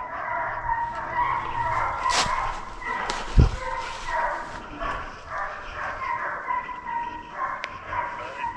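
A pack of deer-hunting dogs barking as they run a deer's trail, a continuous chorus of many short, overlapping calls. A single low thump comes about three and a half seconds in.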